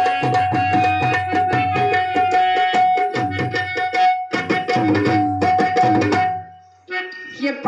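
Tabla pair played fast, with ringing strokes on the small drum and deep booming strokes on the bass drum, over a steady held drone note. The drumming and the drone stop about six seconds in.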